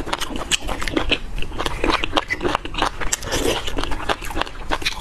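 A person chewing beef bone marrow close to the microphone: many quick, irregular clicking mouth sounds with no pauses.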